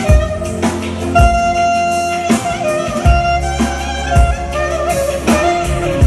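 Clarinet playing an ornamented melody with held notes over keyboard accompaniment and a steady low beat.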